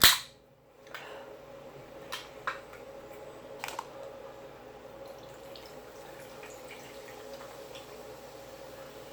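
A few light clicks of utensils against dishes, around two and about four seconds in, over a steady faint hum with a thin constant tone.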